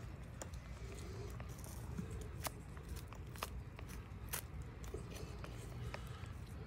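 Puma IP Montero hunting knife cutting through a roe deer's hide and belly tissue during field dressing: faint, irregular clicks and crackles of the blade, over a steady low rumble.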